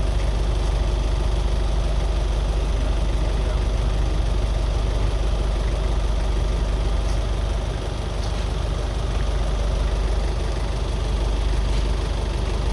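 An engine idling steadily, a low, even running sound with no change in speed.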